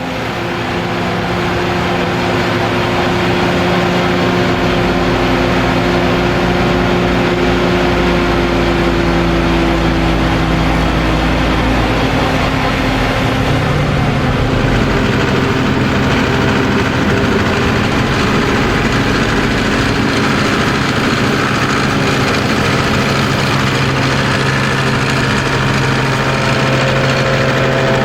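Diesel engines of MB-Trac tractors running steadily in maize silage harvesting work, their pitch drifting slightly, over a dense mechanical noise.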